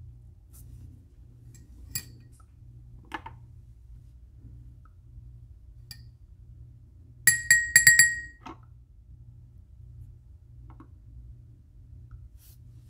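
Steel tweezers clinking against a ceramic dish, a quick run of about five bright, ringing taps a little past the middle. A sharp click about two seconds in and a soft knock a second later.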